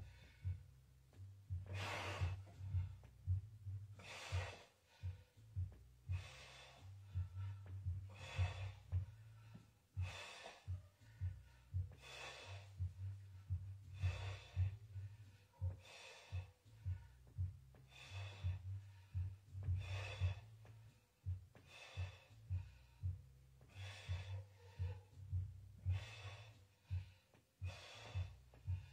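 A man's forceful breathing during dumbbell chest presses: a sharp breath about every two seconds, in time with his reps.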